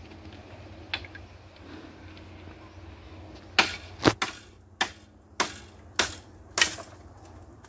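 Six sharp knocks on bamboo, about one every half second, starting about three and a half seconds in, with a single fainter knock about a second in.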